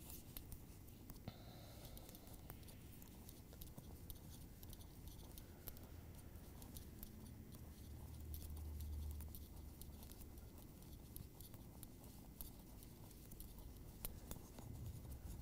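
Faint, irregular clicking and scraping of thin metal double-pointed knitting needles as a sock is knitted in plain knit stitches, with a brief low rumble about eight seconds in.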